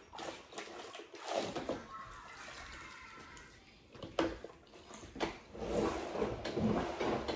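Water swishing in a plastic spin-mop bucket, with a few sharp knocks of the bucket and mop being handled.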